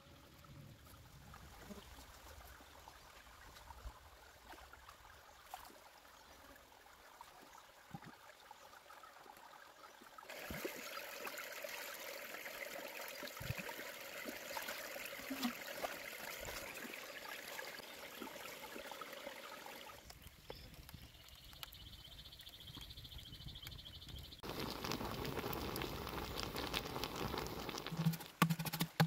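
Water running and trickling, in stretches that change abruptly, with scattered light clicks; the loudest stretch comes near the end.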